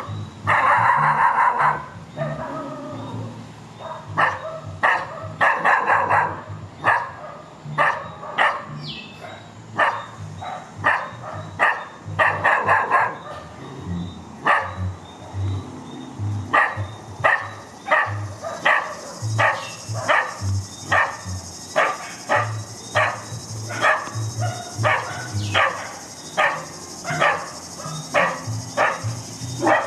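Dogs barking again and again, dozens of short sharp barks, coming faster and more steadily in the second half, with background music underneath.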